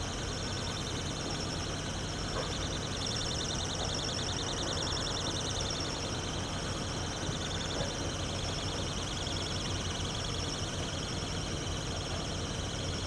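Distant 3TE10M diesel locomotive, its two-stroke 10D100 engines running as a low steady drone while it approaches slowly. Over it comes a dense, high, rapidly pulsing chirring of insects in the grass.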